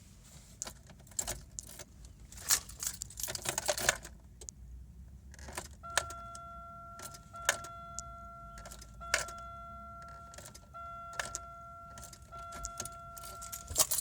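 Car keys jangling and clicking in the ignition of a 1998 Buick Regal that won't start. From about halfway through, a steady high warning tone sounds in four stretches, each broken off by a click.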